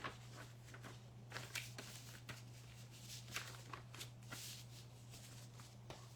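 Faint, irregular rustling with small sharp clicks, like things being handled on a table, over a steady low electrical hum.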